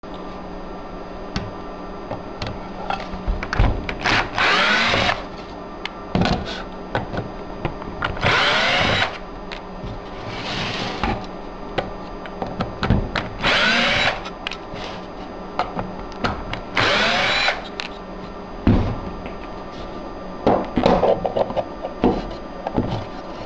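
Small power driver whirring in five short bursts of about a second each, backing the screws out of the end plate of an aluminium MegaSquirt ECU case. Knocks and clicks from handling the case fall between the bursts, over a steady low hum.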